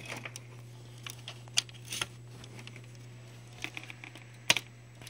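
A few sharp clicks and light knocks of hands handling a laptop's plastic case, over a steady low hum.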